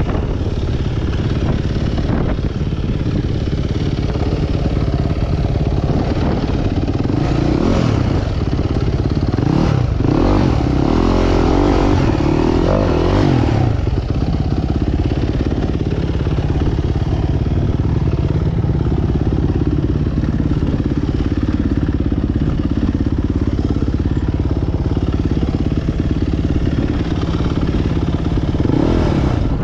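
Dirt bike engine running at low revs over rocky ground, the revs wavering up and down for a few seconds around the middle.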